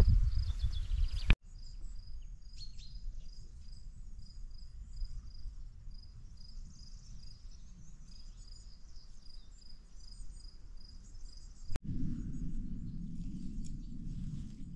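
Countryside ambience: an evenly repeated high chirp, about three a second, with scattered fainter high calls. A loud low noise cuts off abruptly about a second in, and a steady low rumble comes in suddenly near the end.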